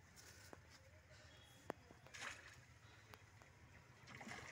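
Quiet, faint splashing of a hooked fish at the pond surface as a landing net is dipped in, with a few light clicks and one sharp click a little before halfway.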